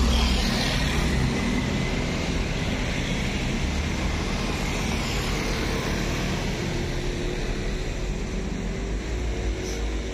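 Steady low rumble of motor traffic, loudest at the start and slowly fading.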